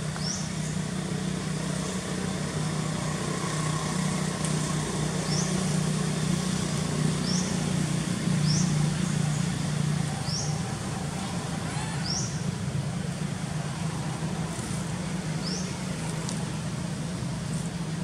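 A steady low droning hum, like a distant motor, with short high rising chirps repeating at irregular gaps of about a second.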